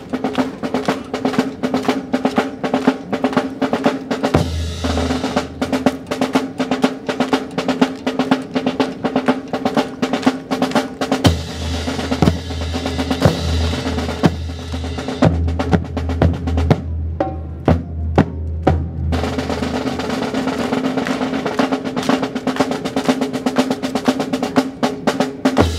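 Drum cadence: a snare drum playing fast rolls and rapid strokes over a low bass drum line. About seventeen seconds in it thins to a few single strikes for a couple of seconds before the full cadence returns.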